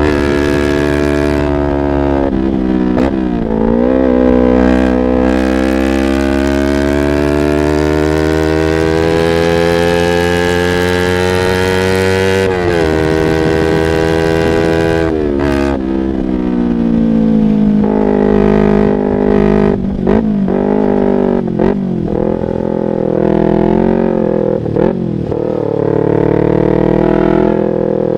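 Yamaha R25's parallel-twin engine through a Proliner aftermarket exhaust, revving under acceleration. After a few brief dips in pitch, it climbs steadily in pitch for about eight seconds, drops off about twelve seconds in, then rises and falls with uneven throttle.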